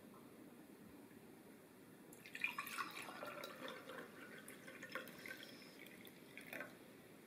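Lemonade poured from a glass carafe into a glass tumbler: a splashing pour that starts about two seconds in and stops shortly before the end.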